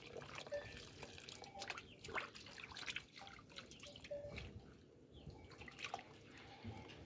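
Faint water splashing and dripping as hands stir fresh spinach leaves in a metal basin of water, with many small irregular splashes.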